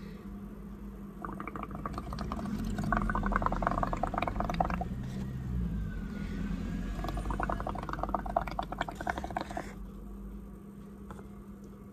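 Bubbling and gurgling as air is blown through a paper straw into a cup of runny paint bubble mix, building a head of bubbles. It comes in two bouts of a few seconds each, with a pause between them.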